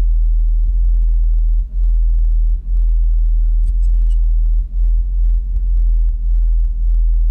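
Deep bass from a car stereo's subwoofers playing music, heard from inside another vehicle. It is a strong, steady low rumble with almost nothing of the higher parts of the music coming through.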